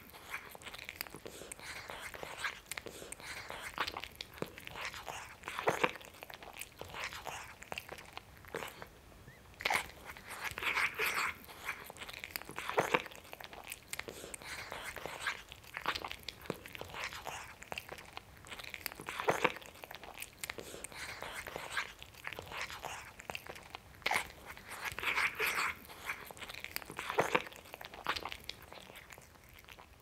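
Cat eating greedily: quick, continuous chewing and lip-smacking with crunchy clicks, in louder flurries every few seconds.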